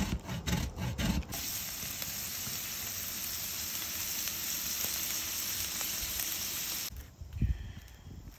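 Cheese grated on a metal box grater, about six quick rasping strokes a second. Then a steady sizzle from sliced peppers, onions and ground meat frying on a hot flat-top griddle, which cuts off suddenly near the end. The sizzle gives way to a soft thump and faint scraping.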